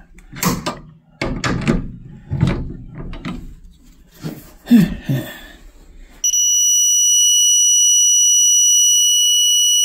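Digital torque wrench sounding its target-torque alarm: one steady high beep that switches on about six seconds in and holds. Before it come irregular knocks and handling noises as the wrench is worked on a breaker lug.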